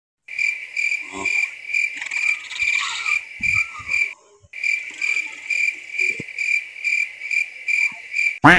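Cricket chirping: a steady high pulse about twice a second, which drops out briefly about four seconds in and then resumes. It ends with a short rising sweep, the loudest sound.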